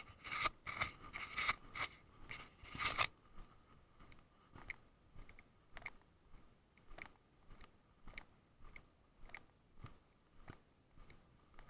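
Footsteps crunching on a gritty path at a steady walking pace, under two steps a second. They are louder and quicker in the first three seconds, with a faint steady whine underneath throughout.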